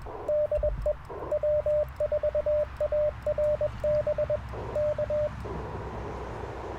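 Morse code (CW) tones from the Icom IC-705 transceiver: one steady mid-pitched note keyed in quick dits and dahs, which stops about five seconds in. After that only the receiver's band noise hiss is left.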